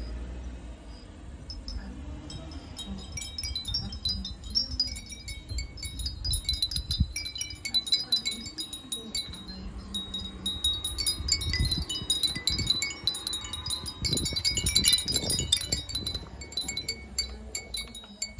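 Many small ceramic furin (Japanese wind chimes) tinkling in the breeze, with irregular, overlapping high clinks and rings. They grow busier about two-thirds of the way through, then thin out near the end.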